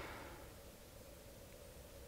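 Near silence: faint steady hiss with a thin, steady tone underneath.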